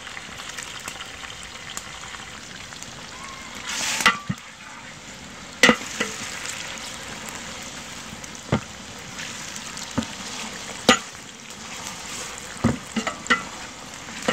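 Onions, tomatoes and green chillies frying in oil in a large aluminium pot, with a steady sizzle that swells briefly louder about four seconds in. A ladle stirring the mix knocks sharply against the pot about eight times.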